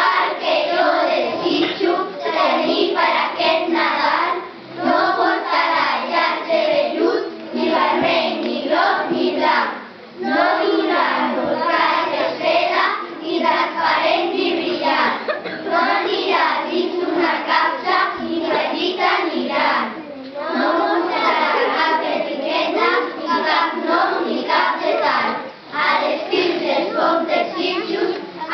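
A group of children's voices in unison, performing a Catalan poem together in chorus, with a few short pauses between lines.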